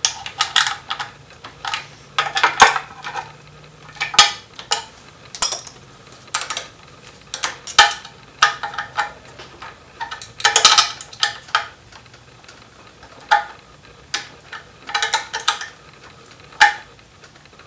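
Hand ratchet clicking in short irregular spurts, with light metallic clinks of the socket and tools, as the bolts of a countershaft sprocket cover are run in and snugged down.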